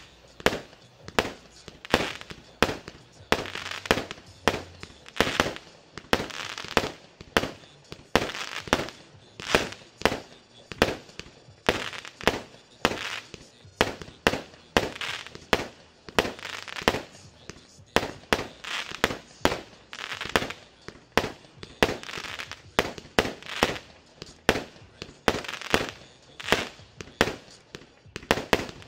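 Triplex Pyro Story TXB705 firework cake (100 shots, 20 mm calibre) firing in quick succession: sharp bangs, about two a second, many followed by a short hiss.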